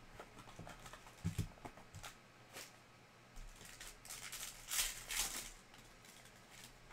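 A cardboard trading-card hobby box being handled and opened, with a couple of soft knocks about a second in. Then a silver foil card-pack wrapper crinkling and tearing open, loudest just after the middle.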